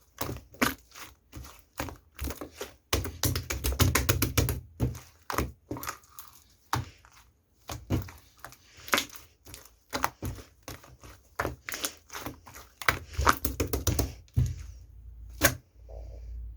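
Handling noise of small objects: a string of sharp clicks and knocks, with a fast rattling run of clicks about three seconds in and some crinkling.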